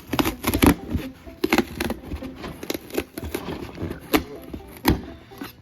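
Irregular sharp cracks and clicks, about a dozen, as a hardened 3D-pen filament piece is pried and peeled off cardboard.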